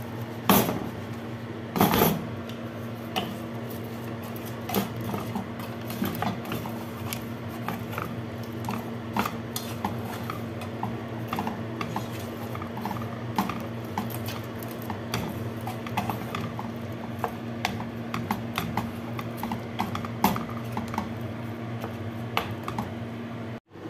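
Wooden spatula knocking and scraping against a nonstick frying pan as chicken wings are tossed in a thick sauce: irregular clicks and taps throughout, over a steady low hum.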